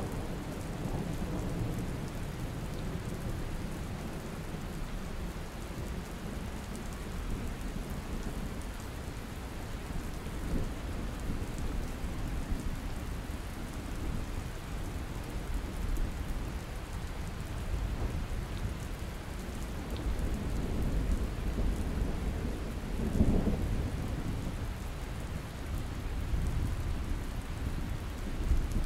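Steady rain falling, with low thunder rumbling under it and one louder roll of thunder about three-quarters of the way through.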